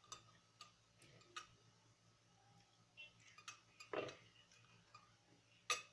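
Near silence with faint, scattered light clicks and taps, a few louder ones about four seconds in and near the end.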